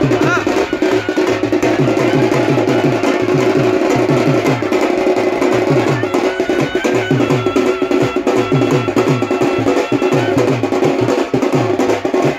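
Loud music with steady, rhythmic drumming.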